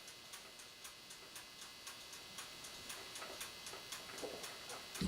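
Faint, steady mechanical ticking, a few even ticks a second, in a quiet kitchen.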